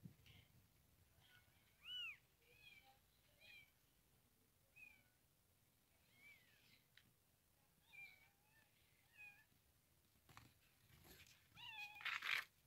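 Newborn kittens mewing: thin, high-pitched cries every second or so, loudest near the end, with a rustle of handling just before the last cries.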